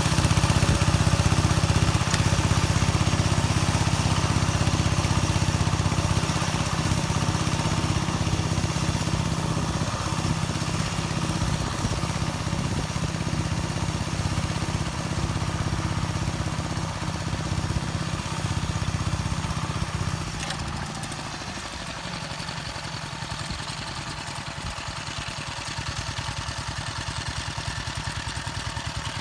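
Engine of a homemade motor-tractor built from a walk-behind tractor, running steadily while rotary-tilling soil. The sound drops noticeably about twenty seconds in and picks up slightly a few seconds later.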